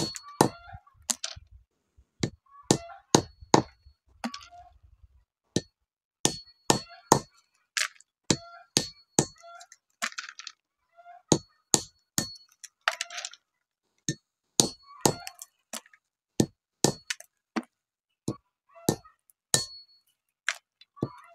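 Andız (Syrian juniper) berries and seeds being cracked with repeated sharp blows, about one or two a second, some with a short metallic ring and a little crunching.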